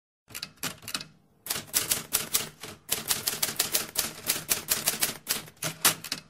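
Typewriter sound effect for on-screen text being typed out: rapid key clacks, about five a second, with a short break about a second in.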